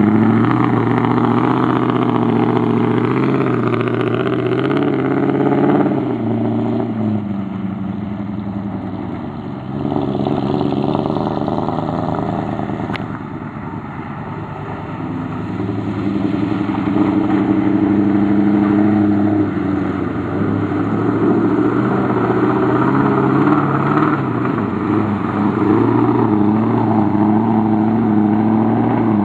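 A 1973 Ford F100's 390 FE V8 revving hard, its pitch rising and falling repeatedly as the 4x4 pickup spins through mud, easing off for a while midway before revving hard again.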